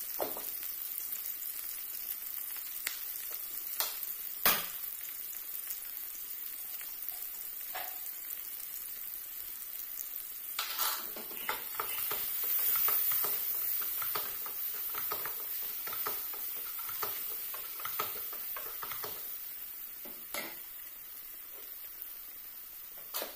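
Onions and tomatoes sizzling in hot oil in a nonstick wok, a steady hiss with scattered crackles. A spatula stirs and scrapes through them in the middle, the loudest stretch, and there is one sharp knock about four seconds in.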